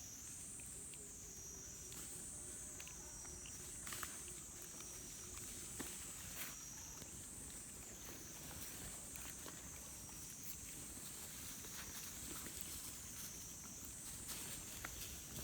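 Insects droning steadily and high-pitched, the pitch wavering up and down about every two seconds. Scattered faint clicks and taps, the clearest about four and six seconds in.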